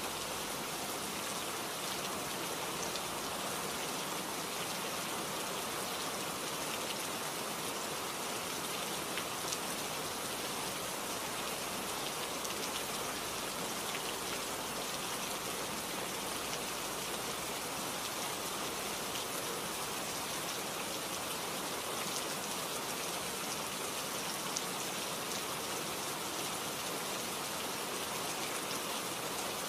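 Steady rain, an even hiss with faint scattered pattering ticks.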